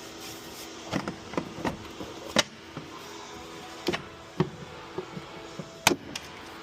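Irregular sharp clicks and light knocks of hand tools and engine parts being handled during disassembly, over faint background music.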